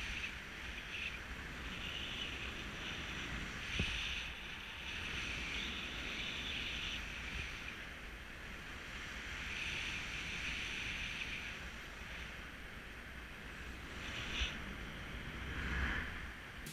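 Wind rushing over the camera microphone in paraglider flight, a steady low rumble with hiss that swells and eases, and a brief tap about four seconds in.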